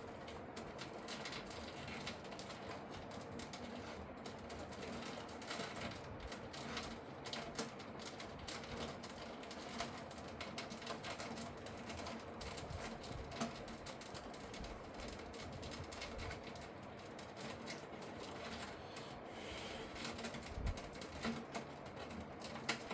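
Rubbing and scraping handling noise with many scattered light clicks.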